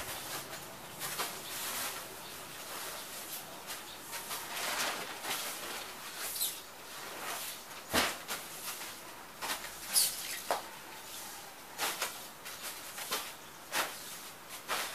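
Soft grass broom sweeping a floor in irregular swishing strokes, with plastic bags rustling as they are shifted aside and a few sharp knocks.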